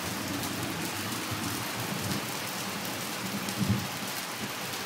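Pea-size hail falling hard, a dense stream of hailstones hitting the ground and nearby surfaces, with one louder knock about three and a half seconds in.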